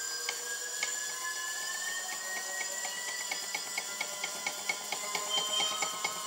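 A 48V 500W e-bike hub motor in a 700C wheel spinning up on a test bench, its whine rising steadily in pitch. A rhythmic ticking grows quicker in the second half.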